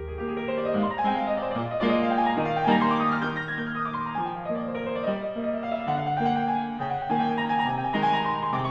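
Classical-style piano music, with runs of notes rising and falling over a steady lower accompaniment.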